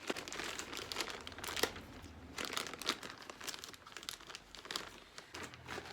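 Packaging crinkling and rustling in a stream of irregular crackles as it is handled and opened by hand.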